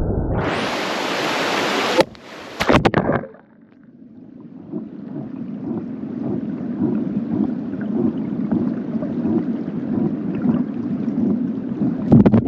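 Rushing creek water. The flow is bright for a moment, then broken by a few knocks from handling about two seconds in, then muffled and building back up.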